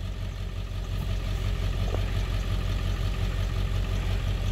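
A vehicle engine idling steadily, with a brief click about two seconds in.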